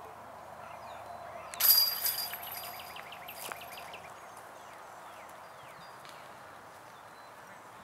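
A putted disc striking the chains of a disc golf basket about one and a half seconds in: a sharp metallic crash with a brief high ringing, then the chains jingling and clinking for a second or two as they settle.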